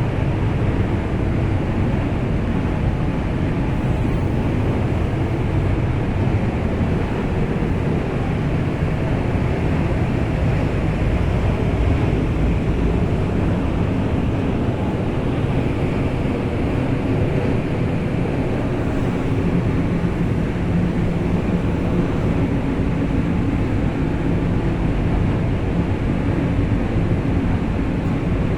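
Steady, unbroken mechanical rumble with a low hum, strongest in the low range and with no strokes or pauses.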